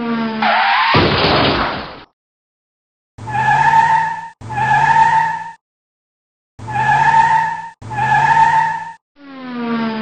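Added car sound effects: a tyre-skid burst with a falling engine note at the start, four one-second car sounds in two pairs in the middle, and a second skid burst near the end.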